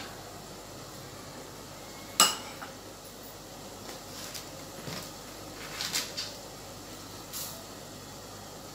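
Kitchen handling sounds: one sharp clack about two seconds in, then a few lighter clinks and rattles of a steel spoon and a plastic sugar jar being handled for adding sugar to the kheer, over a faint steady hiss.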